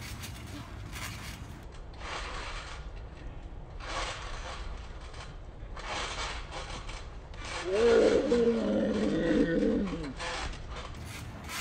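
Trampoline mat and springs rubbing and creaking in a series of swishing swells as players bounce on it. A louder, rough groaning sound runs for about two seconds near the end.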